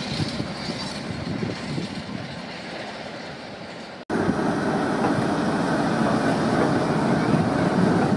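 A freight train of box wagons running away down the line, its wheel noise fading over the first four seconds. After an abrupt cut, a Class 60 diesel locomotive, with its eight-cylinder Mirrlees engine, runs past close by at the head of a tank train, a louder steady engine and wheel rumble.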